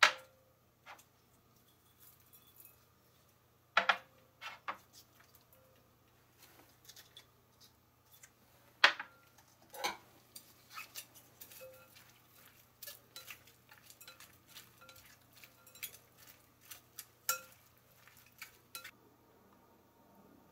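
Sharp clinks and taps of small ceramic dishes set down on a countertop and touching a glass mixing bowl, scattered through with no steady rhythm. The loudest knocks come right at the start and again about four and nine seconds in, followed by a run of lighter taps.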